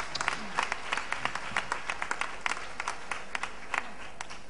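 Audience applause, many hands clapping unevenly, thinning out to a few last claps near the end.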